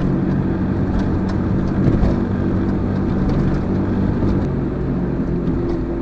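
Car engine and exhaust droning steadily, heard from inside the cabin while driving, with a brief bump about two seconds in. The driver takes the drone for the welded-up exhaust, pushed up high, vibrating against the chassis.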